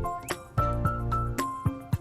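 Background music: a light, upbeat tune with plucked or keyed notes over a regular beat.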